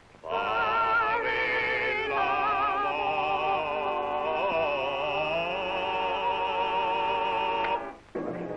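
A man's voice singing a song in Italian with a wide vibrato on an old film soundtrack. From about two seconds in he holds one long note, which breaks off shortly before the end.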